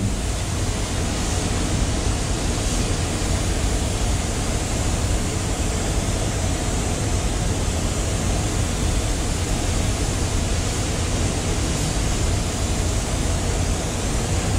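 Compressed-air spray gun hissing steadily as it sprays the effect coat of base paint onto a car hood, with the air pressure lowered to about one bar. Underneath is a steady low rumble.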